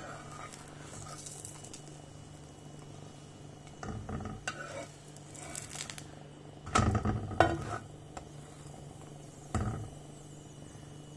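A steel spatula pressing and scraping an aloo paratha on a hot tawa in a few short, irregular bouts, loudest about seven seconds in, with a light sizzle from the frying paratha.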